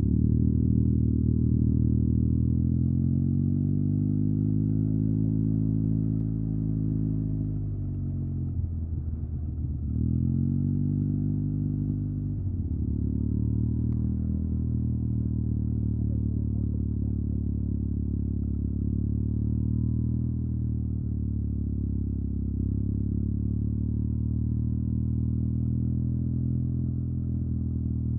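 Yamaha TMAX 560 maxi-scooter's parallel-twin engine through an Akrapovic carbon full-system exhaust, under way at a steady speed. About eight seconds in the revs fall away as the throttle closes. They pick up again between ten and twelve seconds, then hold steady.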